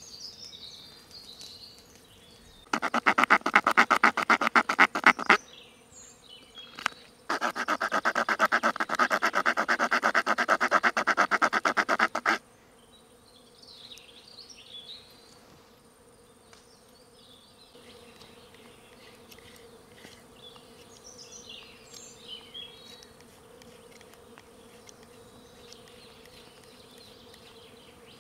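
Small saw blade of a multitool rasping through a piece of wood in rapid short strokes, in two loud bouts, the second about five seconds long and starting and stopping abruptly.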